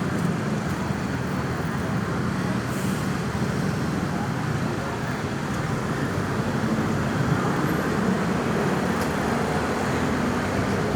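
Steady road traffic noise, the mixed running of engines and tyres, with no siren sounding.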